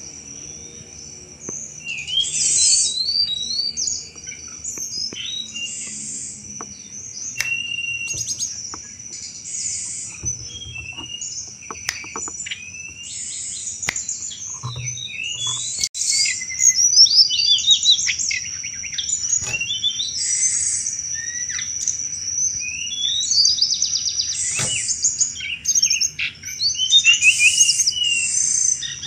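Tledekan gunung singing loudly and non-stop in its rapid chattering 'cetrekan' style, with short high, quick phrases every second or two over a steady high-pitched tone.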